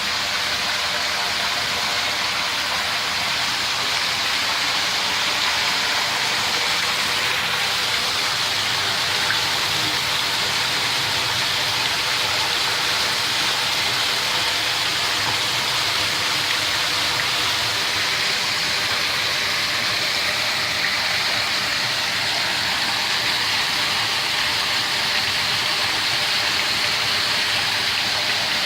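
Steady, even hiss with a steady machine hum underneath, unchanging throughout.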